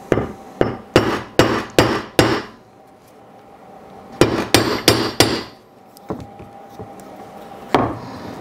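Mallet striking a steel rivet-doming setter to dome a copper rivet post over a steel block: six evenly spaced blows, a pause, five quicker blows, then one more near the end.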